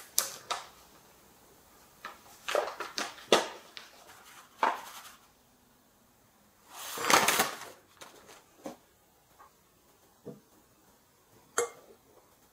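A paper flour bag rustling and crinkling as flour is shaken out of it into a ceramic bowl, with one longer rustle about seven seconds in. A few light knocks follow, and the ceramic bowl clinks once near the end.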